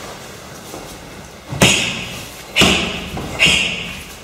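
Punches and kicks landing on handheld karate striking pads: three sharp smacks, about a second apart, echoing in a large gym hall.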